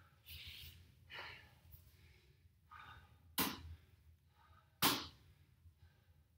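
A man's breathy exhales, then two sharp slaps about a second and a half apart as an inflated sport ball is caught in both hands during an overhead toss.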